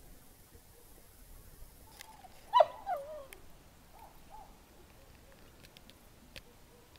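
An animal's call: one loud call with a falling, wavering pitch about two and a half seconds in, followed by a couple of fainter short calls.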